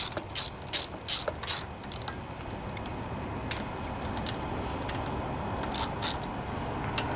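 Ratchet wrench clicking in quick, even strokes, about two or three a second, as it tightens a starter motor mounting bolt. The clicking stops about a second and a half in, and a few single clicks follow.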